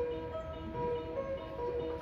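Electronic train-approach melody from the station platform speakers: a simple looping tune of clear held notes, changing pitch every fraction of a second.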